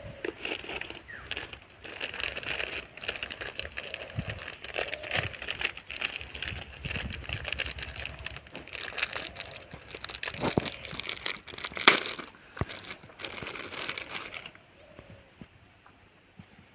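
Thin plastic bag crinkling and rustling as it is handled, with irregular crackles, stopping a couple of seconds before the end.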